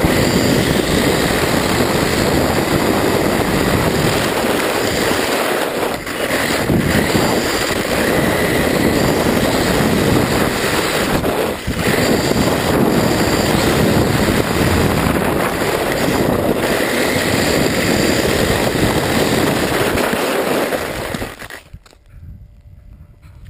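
Radio-controlled truck driving fast over asphalt, heard from a camera mounted on it: a loud, steady rush of motor, tyre and wind noise. It drops away abruptly near the end as the truck stops.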